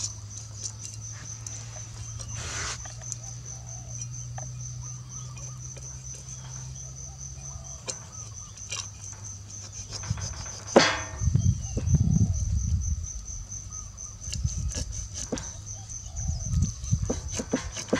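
Cleaver knocking and scraping against a fish on a wooden chopping block: scattered sharp knocks that come louder and more often in the second half, the loudest about eleven seconds in. A cricket trills steadily behind them.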